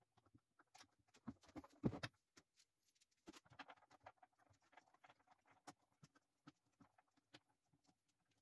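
Faint, scattered clicks and taps of small hand-fitted parts and screws on a 3D-printed plastic hull, with a brief cluster of louder knocks about two seconds in and sparse light ticks after.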